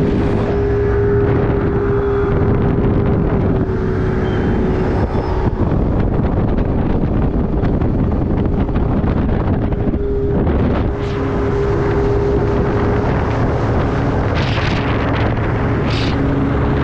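Bass boat's outboard motor running at high speed, a steady engine drone under heavy wind buffeting on the microphone and water rushing past the hull. Two short bursts of noise come near the end.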